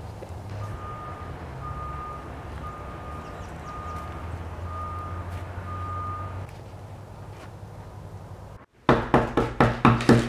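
A vehicle's reversing alarm beeping six times, about once a second, over a low rumble. After a sudden dropout near the end, a quick run of loud, pitched strikes, about five a second.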